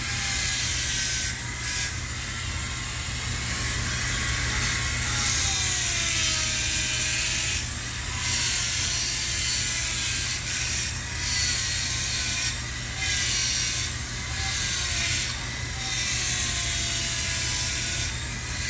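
A tool scraping and cutting into a block of ice in repeated strokes about every second or so, as a template design is etched into it, over a steady low hum.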